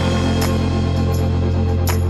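Background music: a held bass note under a steady backing, with two percussion hits, one about half a second in and one near the end.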